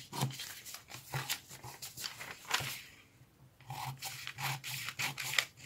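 Scissors snipping through sheets of paper in a run of short strokes, pausing about three seconds in, then paper rustling as the sheets are handled.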